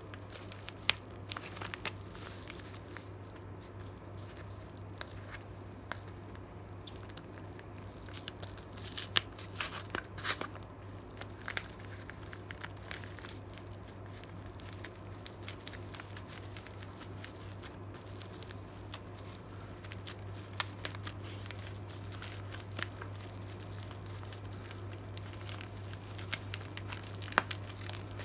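Packaging being handled and opened by hand: crinkling and tearing in irregular stretches with scattered sharp clicks, over a steady low hum.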